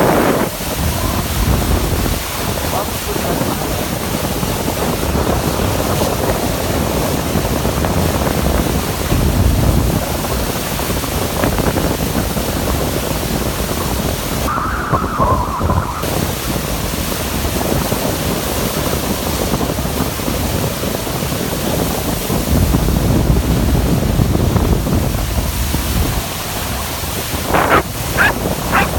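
Steady wind buffeting the microphone over rushing water from a boat's wake. Near the end a dog starts yipping in a quick run of short, high yelps.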